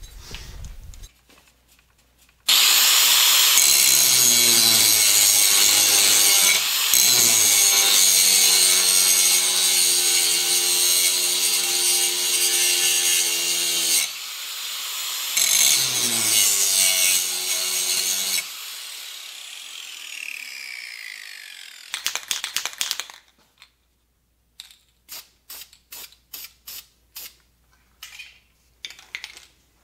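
Electric angle grinder spinning up and grinding down the side of a metal dirt-bike foot peg clamped in a vise, in two long passes with a brief pause between. After the second pass the grinder winds down with a falling whine. Near the end comes a quick run of sharp clicks.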